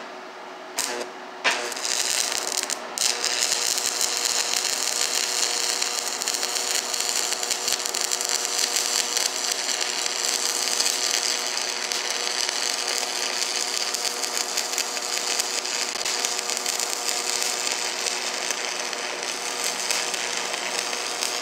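Stick-welding arc: a couple of brief scratches strike the arc about a second in, then it crackles and sizzles steadily while a weld bead is run, stopping abruptly near the end.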